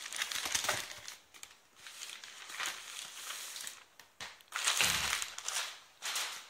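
Plastic shipping mailer bag crinkling and rustling in irregular bursts as a shoebox is worked out of it, the loudest rustle coming about five seconds in together with a dull bump.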